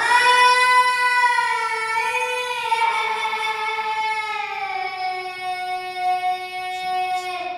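A high voice sings one long held note of a Mongolian long song (urtiin duu), its pitch slowly falling, and stops near the end.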